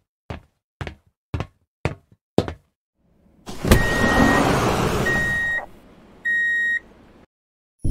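Sci-fi sliding-door sound effects: a run of sharp mechanical clicks about twice a second, then a heavy hit and a loud hiss as the doors slide open. Three electronic beeps at one pitch come through it, the last just after the hiss cuts off.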